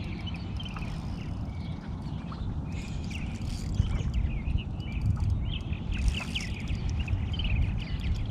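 Birds chirping and calling over and over in short notes, over a steady low rumble, with a few faint clicks.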